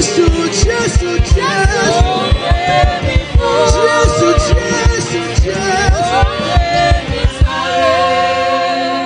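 Worship music: a singer over a band with a steady, quick kick-drum beat. The drum drops out about three quarters of the way through, leaving sustained held notes.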